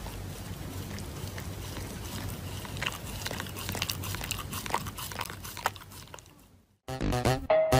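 A dog chewing: irregular crunching clicks over a steady hiss, fading out about six and a half seconds in. Loud electronic music with a beat starts abruptly near the end.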